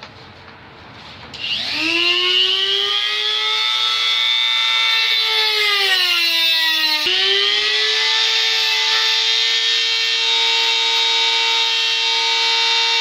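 A small handheld power tool's motor starts about one and a half seconds in and whines up to speed. Its pitch sags for a couple of seconds under the load of cutting, then jumps back and runs steadily at high speed. It is trimming the corner of a plastic trim cover to clear a hitch bracket.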